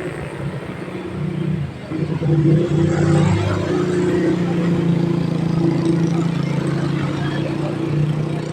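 Diesel engine of a passing tour bus running under acceleration, growing loud about two seconds in and then holding a steady low note.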